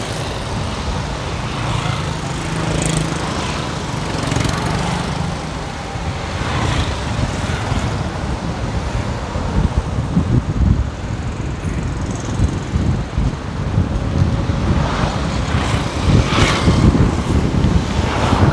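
Engine and road noise of a vehicle moving through city traffic. From about halfway through, wind buffets the microphone in uneven gusts.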